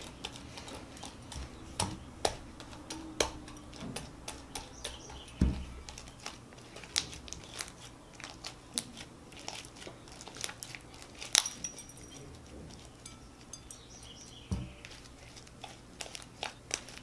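Homemade fluffy slime with beads mixed in, kneaded, squeezed and stretched by hand over a glass bowl: irregular sticky clicks and crackles, with two soft low thumps.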